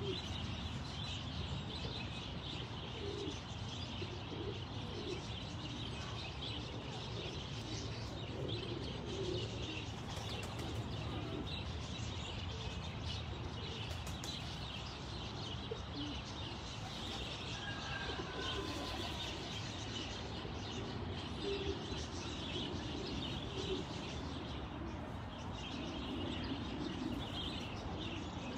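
Doves cooing over and over, soft low calls that keep coming, with steady high chirping of small birds behind them.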